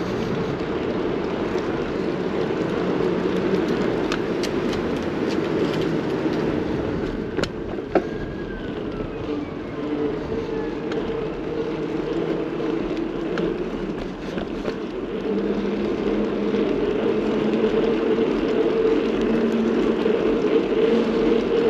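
Steady road and traffic noise heard from a moving bicycle, with a single sharp click about eight seconds in.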